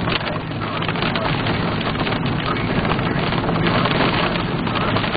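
Steady noise inside a car driving on a rain-soaked highway: tyres hissing through water on the road, rain and wind on the vehicle, with a low steady hum underneath.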